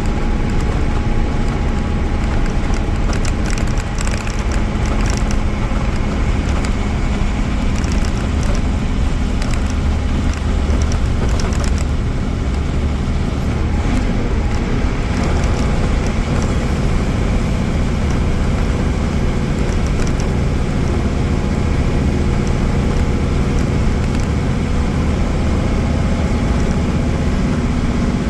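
Mercedes-Benz OM-366A six-cylinder turbodiesel engine of an OF-1318 bus running under way, its pitch dipping and then rising again near the end, with a few light rattles.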